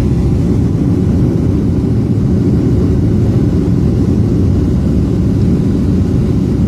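Steady low drone of an airplane's engines and airflow heard from inside the passenger cabin during descent.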